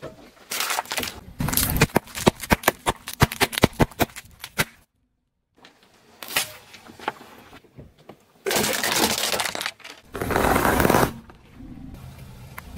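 A car tyre crushing a plastic tray of cookies: a quick, dense run of sharp crunching cracks lasting about four seconds. After a break, a tube of paste is squashed under the tyre, giving two longer hissing, squelching bursts.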